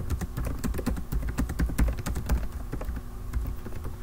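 Typing on a computer keyboard: a quick run of key clicks that thins out over the last second or so.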